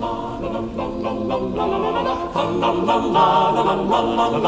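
Several voices singing together a cappella in Renaissance-style polyphony, sustaining and changing notes on sung syllables.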